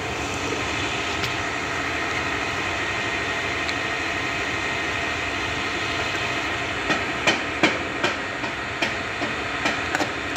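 Steady background noise, then from about seven seconds in a quick run of sharp clinks: a spoon knocking against a plate during eating.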